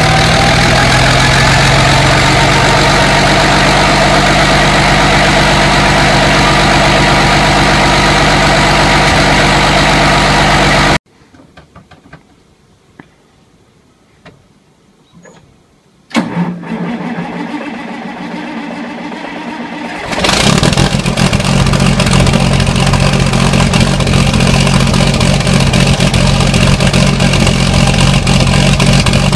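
A large V-type diesel engine runs steadily and loudly, then cuts off abruptly about 11 seconds in. After a few quiet seconds a big articulated farm tractor's diesel engine is cold-started: a cranking sound comes in at about 16 seconds, and the engine catches and runs louder and steadily from about 20 seconds.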